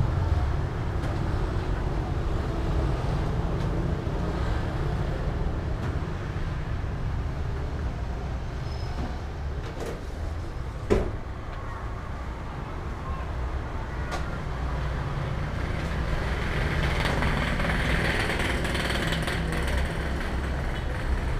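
Street traffic noise: a steady low rumble of passing vehicles. A single sharp click about eleven seconds in, and the traffic noise swells for a few seconds near the end.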